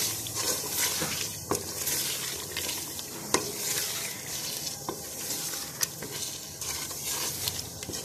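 Wooden spoon stirring chicken pieces frying in oil with tomato and spices in a metal pot: a steady sizzle, broken by a few sharp knocks of the spoon against the pot.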